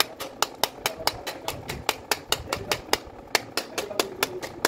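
Rapid, even hammer taps, about four or five a second, striking a Makita BO5030 orbital sander's motor housing to drive the armature out.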